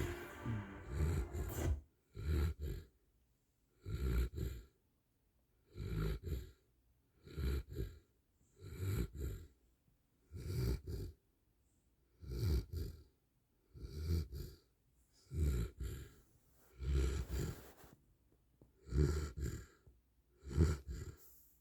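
Rhythmic snoring, about a dozen snores, one roughly every one and a half to two seconds, with quiet pauses between them.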